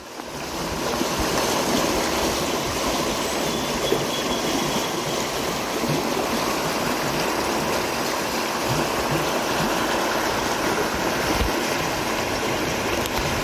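Rapids on a river rushing steadily: a loud, even wash of moving water that swells up over the first second.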